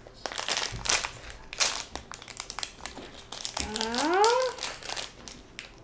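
Foil blind bag crinkling and crackling in rapid, irregular bursts as it is torn open and pulled apart by hand. A brief rising voice, like an 'ooh', sounds about three and a half seconds in.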